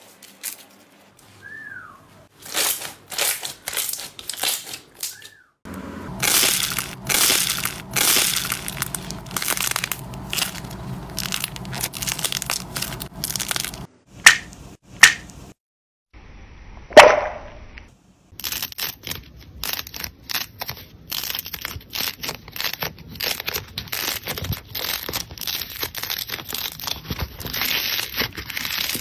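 Hands squeezing, stretching and kneading slime: dense sticky crackling, clicking and squishing. Two sharp pops come about halfway through, then a single louder snap. After that comes a long run of close crackling as a fluffy, rainbow-coloured slime is kneaded.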